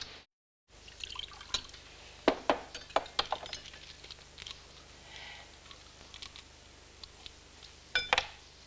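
Glasses and decanters clinking against each other as a drink is poured: a run of sharp clinks, a short soft pour, then a few more clinks near the end.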